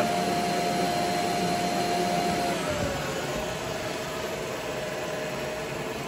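Bissell ICONpet robot vacuum starting a cleaning run: its suction motor runs with a steady whine over a hiss of airflow. About halfway through, the whine drops slightly in pitch and the sound gets a little quieter.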